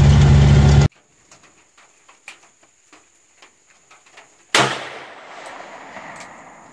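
A .357 revolver loaded with .38 Special rounds fires a single sharp shot about four and a half seconds in, its echo dying away over a couple of seconds. Before it, a vehicle's running engine rumbles and cuts off abruptly about a second in.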